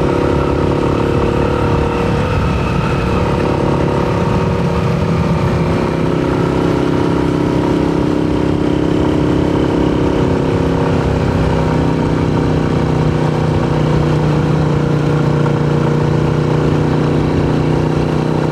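Motorcycle engine running steadily while being ridden, its pitch wavering a little in the first few seconds and then holding level.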